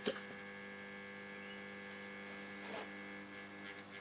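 The speaker of a 1947 STC Bantam C141 valve radio gives a steady mains hum, powered up but picking up no station. A couple of sharp clicks come at the very start as an antenna lead is connected.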